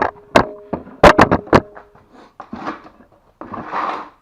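Sharp metallic clicks and knocks, about six in the first two seconds, some leaving a brief ringing tone, as the copper wire stripping tool is adjusted; then two softer scraping rustles near the end.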